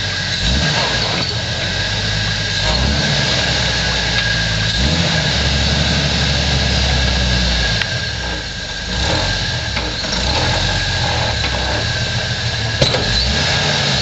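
Jeep Wrangler YJ rock crawler's engine running at low revs, rising and falling in steps as the Jeep crawls down a steep rock ledge. A sharp knock near the end.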